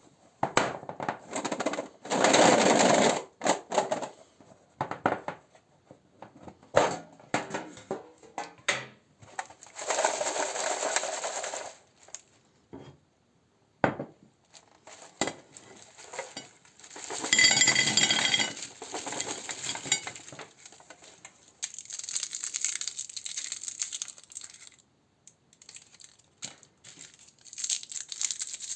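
Candy packaging crinkling and tearing in irregular bursts, with small hard candies clicking and clattering against a dish.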